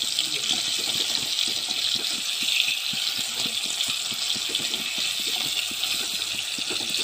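Chicken pieces sizzling steadily as they fry in hot oil in a kadai, with a slotted spatula scraping the pan as they are stirred and turned.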